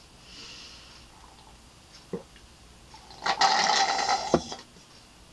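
A person drinking water through a straw from a glass: faint sucking, a small click about two seconds in, then a loud, noisy sound lasting about a second as the drinking ends, finishing with a sharp click.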